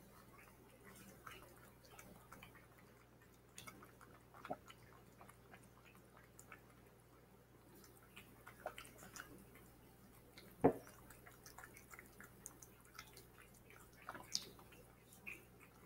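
Cat eating wet food from a bowl: faint, irregular wet smacking and licking clicks, with one sharper, louder click about two-thirds of the way through.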